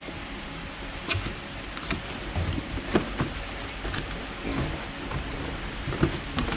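Scattered knocks and clicks of metal parts and tools being handled in a workshop, over a steady background noise.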